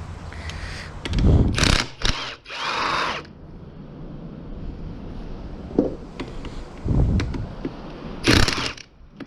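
Hand ratchet wrench clicking in bursts while backing out transmission case bolts, with a few sharper metallic clanks between.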